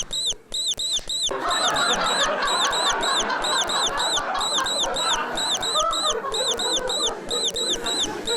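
Rapid, evenly repeated high chirps, about four a second, with a rustling noise coming in about a second in.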